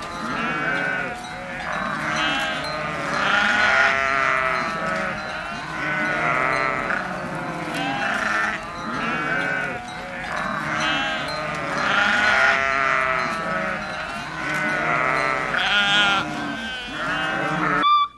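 A herd of goats bleating, many wavering calls overlapping with hardly a gap, swelling and fading every couple of seconds.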